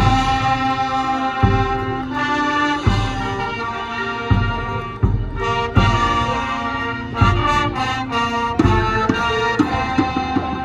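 High school marching band playing: the brass section holds loud sustained chords over low drum hits that land about every second and a half.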